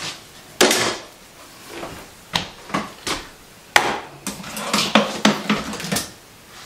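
Hair tools (hair dryers, brushes and styling irons) clattering and knocking against each other and the wooden drawer as they are rummaged through and lifted out, one set down on the countertop. Irregular knocks and clatters, busiest in the second half.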